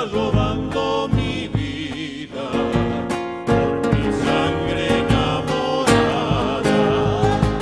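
Argentine folk vocal group singing in harmony with vibrato, backed by strummed acoustic guitars and the steady beat of a bombo legüero drum.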